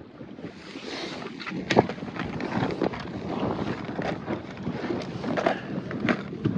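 Gusty wind buffeting the microphone, with scattered clicks and knocks; a sharp knock just under two seconds in is the loudest.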